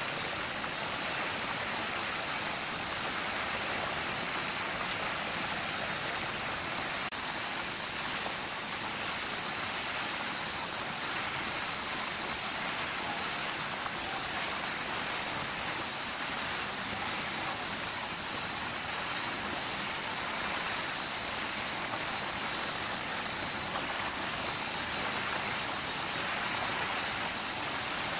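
Steady high-pitched chorus of cicadas, a continuous hiss that keeps an even level throughout.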